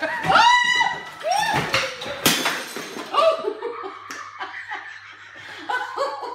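People laughing and shrieking, with a single sharp thump about two seconds in as a woman is thrown off the back of a running treadmill onto the floor.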